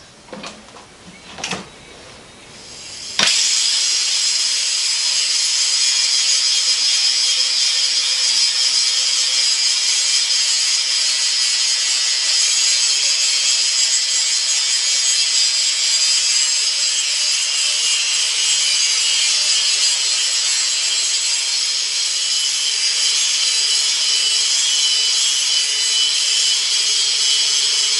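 A few light knocks, then about three seconds in a grinder starts on the cut-out inner edge of a metal sprocket: steady, loud, high-pitched grinding of metal, taking the bore out so the sprocket will fit over the trommel tube.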